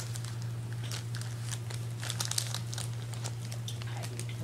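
Bananas being peeled and handled: quick, irregular crinkling and tearing clicks of the peels, over a steady low hum.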